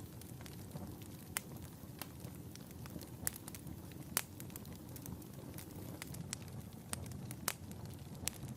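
Wood fire burning in a fireplace: a low steady rumble of flames with sharp, irregular crackles and pops, one or two a second.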